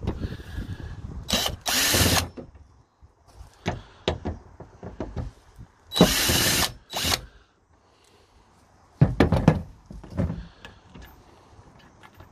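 Yellow DeWalt cordless drill spinning in short bursts on the screws that hold the plastic tailgate liner, taking them out: two bursts about a second and a half in, a longer one around six seconds in with a brief one after it. A cluster of sharp knocks and clicks follows about nine seconds in.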